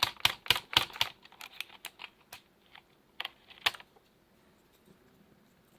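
Keys on a mechanical keyboard with Kailh Box switches being pressed, clacking quickly about four times a second for the first second. Lighter scattered clicks follow, then two louder clacks around three and a half seconds in.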